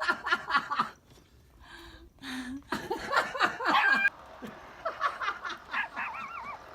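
People laughing in two runs of quick, pulsing bursts: one right at the start, then a louder one from about three seconds in, followed by quieter voices.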